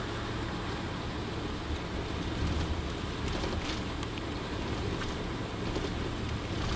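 Steady engine and tyre rumble heard inside the cabin of a vehicle cruising on an expressway, with a few faint clicks.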